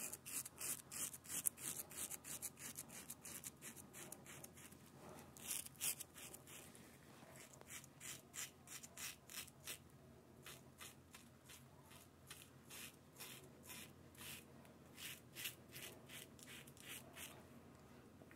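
Feather double-edge safety razor scraping through lather and stubble in short, quick strokes, about two or three a second, with a few brief pauses. The strokes are faint, and the blade is gliding smoothly.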